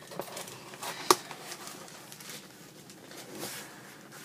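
Kitchen items and packaging being handled and packed into a box: light rustling and small clicks, with one sharp knock about a second in.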